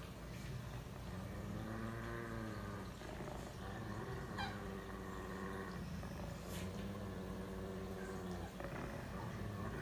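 A dog vocalizing in about three long, drawn-out pitched sounds, each lasting a second or two.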